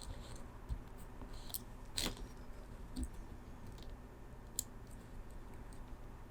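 Small hand tools working on keyboard wiring: a handful of sharp, separate clicks and snips, like flush cutters trimming wire, the loudest about two seconds in, over a faint steady hum.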